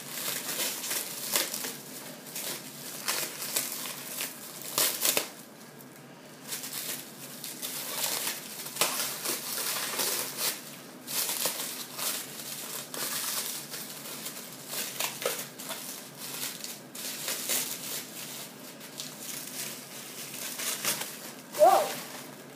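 Clear plastic packaging crinkling and rustling irregularly as hands pull and crumple it, with a brief louder pitched sound near the end.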